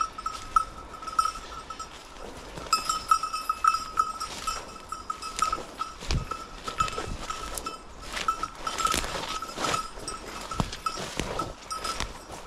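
Bell on a hunting dog's collar ringing in quick, irregular strokes as the dog searches through cover, with twigs and brush crackling now and then.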